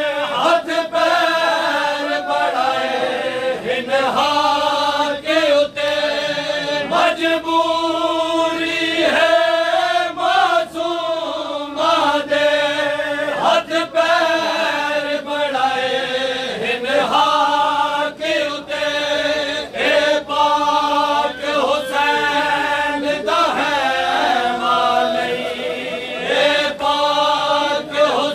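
A group of men chanting a noha, a Shia lament, together in a slow melody, with rhythmic chest-beating (matam) slaps keeping time throughout.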